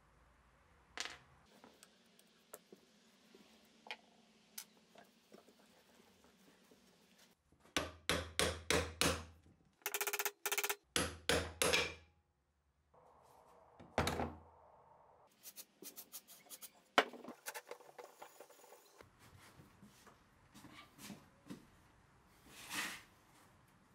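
Metal parts of an old manual screw press being worked by hand: scattered small clicks, then a run of knocks and a stretch of clatter as the cast pressing foot is worked free of the screw, then rapid clicking as the T-handle screw is turned.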